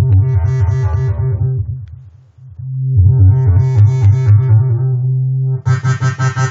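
Native Instruments Massive software synthesizer playing a heavy bass patch in two phrases that swell and brighten, like a filter opening. Near the end it changes to a brighter, fuller tone that pulses rapidly.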